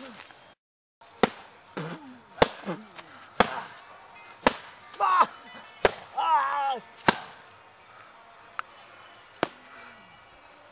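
Fight blows: about ten sharp whacks landing one after another, the last two fainter. A man grunts between the early blows and gives two drawn-out cries of pain in the middle.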